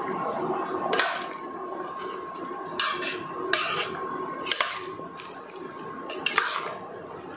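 A metal ladle stirring mutton curry thinned with freshly added water in a stainless-steel pressure cooker pot: liquid sloshing, with about five sharp clinks of the ladle against the pot.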